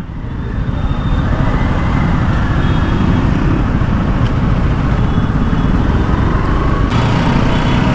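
Riding on a Bajaj Pulsar NS200 motorcycle: its single-cylinder engine runs under a steady rush of wind on the microphone. The noise swells over the first second and then holds steady.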